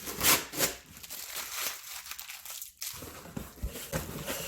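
Cardboard shipping box being pulled open by hand, with crinkling and rustling and two sharp scrapes in the first second.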